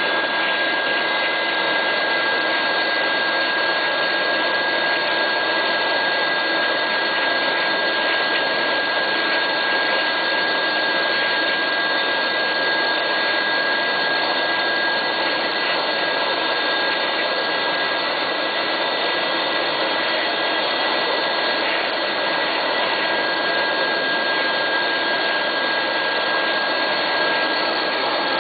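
Boeing 737-200's Pratt & Whitney JT8D turbofan engines running at low taxi power: a loud, steady rushing noise with a high, unchanging whine.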